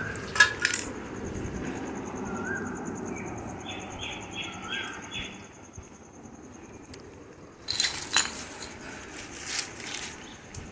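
Quiet outdoor background with a bird giving a quick run of five short high chirps midway, a faint steady high insect-like whine, and a few clicks and clatters of handled parts near the start and about eight seconds in.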